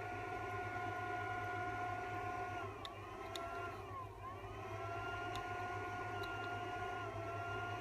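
Mini induction heater running with a steady high-pitched tone over a low hum. About three seconds in its pitch dips and slides back up, and it shifts again near the end, as its load changes with the metal shroud and copper joint in the coil. A few faint ticks.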